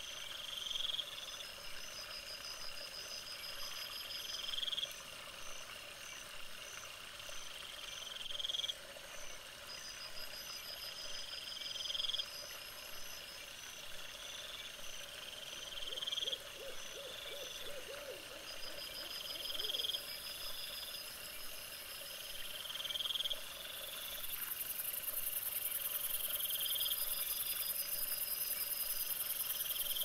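Night-time animal calls: a short call that rises at its end repeats about every four seconds, with a quicker pulsed trill between them. A steady high hiss with fast ticking comes in near the end.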